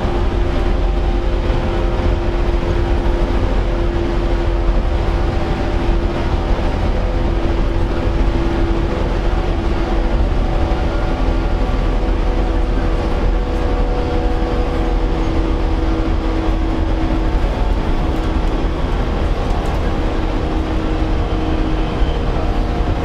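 Interior running sound of a JR 115 series electric train in its motor car: the traction motors hum in several steady tones over a constant rumble of wheels on rail, the train holding a steady speed.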